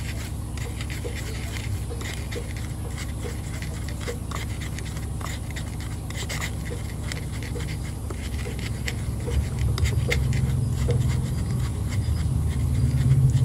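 Wooden pestle grinding and scraping in a wooden mortar in steady, repeated strokes, crushing garlic into crushed instant noodles. A low engine hum swells toward the end.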